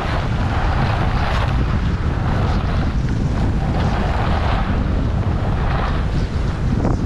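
Wind buffeting the microphone of a GoPro Hero8 while skiing downhill, a steady rumble, with skis hissing over packed snow in swells as the skier turns.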